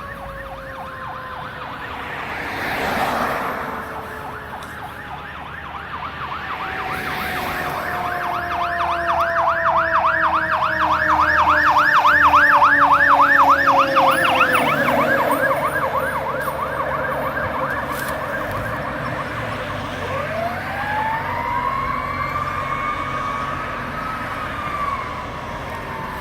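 Fire engine siren on an emergency run: a rapid yelp cycling up and down, over a long wail that slowly falls in pitch. The yelp grows louder toward the middle, and about two-thirds of the way through a new wail rises and holds.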